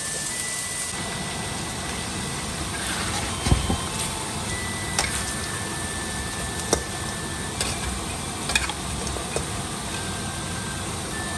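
Goose and radish stew cooking in a wok, with a steady low rushing underneath. From about three and a half seconds in, a metal spatula scrapes and knocks against the wok several times as it stirs.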